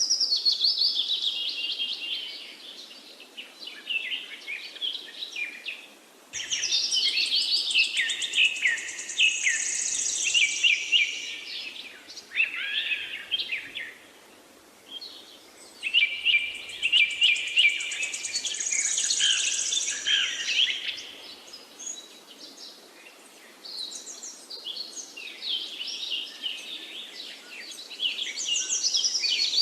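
Forest birds singing, several at once, in overlapping chirps, trills and whistles that come in bouts of a few seconds with short lulls between them, over a faint steady rush.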